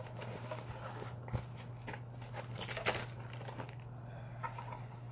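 Packaging being handled and items lifted out of a tool box: crinkling and rustling with scattered light clicks and knocks, over a steady low hum.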